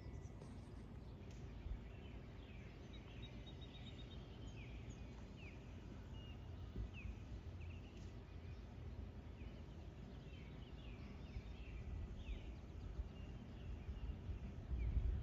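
Several birds chirping and singing, with short repeated chirps and a quick trill, over a faint low steady rumble.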